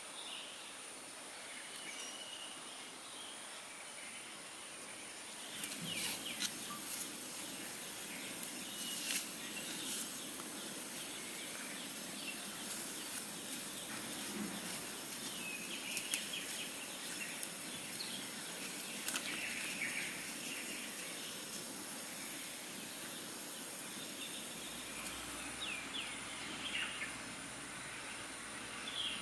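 Outdoor ambience of birds chirping and insects buzzing. From about six seconds in, intermittent paper rustles and sharp clicks come from a paper coffee filter being folded and brewing gear being handled.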